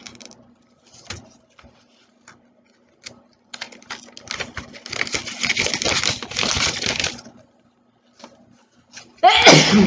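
Paper instruction leaflet being unfolded and handled: scattered crinkles and taps, then several seconds of dense paper rustling and crackling, with a short louder burst near the end.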